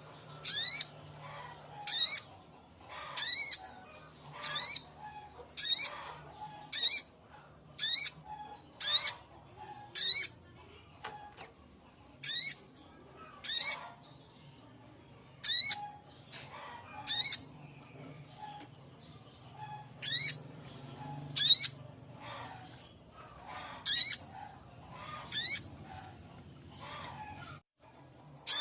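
Male sogok ontong bird calling: a short, sharp, high call repeated about once a second, with a couple of longer pauses. A faint steady low hum runs beneath and stops near the end.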